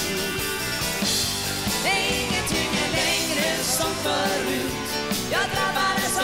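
Live dansband music: a band with drums, keyboard and electric guitars playing a mid-tempo pop song, with a woman singing the lead vocal over it.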